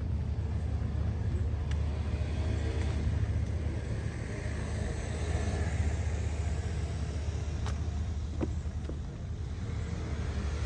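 Outdoor street ambience dominated by a steady low rumble, with a few faint clicks scattered through it.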